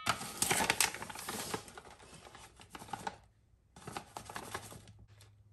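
Crinkling and rustling of a stiff paper bag of cocoa powder as a measuring spoon digs into it to scoop a tablespoon, in two stretches with a short pause between.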